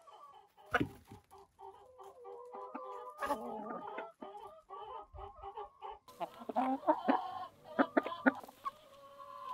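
A flock of hens clucking over one another in short, overlapping calls, with sharp taps of beaks pecking at a corn cob on the ground.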